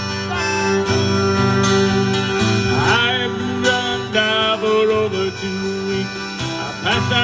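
Instrumental break of a slow country-folk ballad played live on fiddle, acoustic guitar and accordion, with sustained notes over strummed chords.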